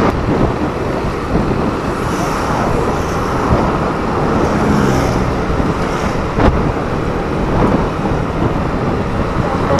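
Motorcycle on the move: engine and road noise with wind rumbling on the microphone. A single sharp knock about six and a half seconds in.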